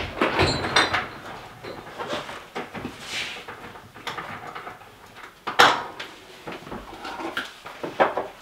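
Metal bench-mount parts and hardware clunking and clicking as they are handled and set on a workbench: a handful of sharp knocks, the loudest about five and a half seconds in.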